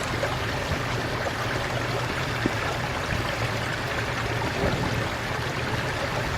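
Steady wind rumbling on the microphone, with waves washing on the shore.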